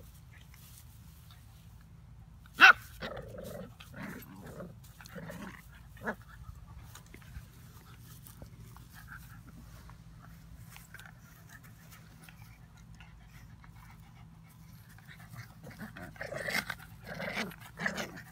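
Two puppies play-fighting, giving short growls and yips in scattered bursts. There is one sharp, loud sound about three seconds in, and a louder flurry near the end.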